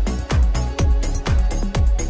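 Background electronic dance music with a deep kick drum that drops in pitch on each beat, about two beats a second.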